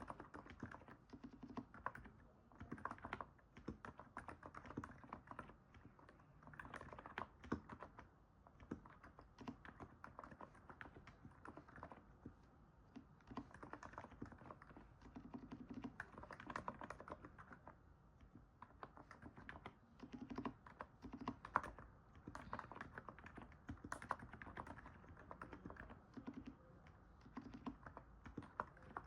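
Typing on a NIZ 68 Pro electro-capacitive keyboard: fast runs of soft keystrokes in bursts, with brief pauses between phrases. It is a muffled sound likened to stepping on snow.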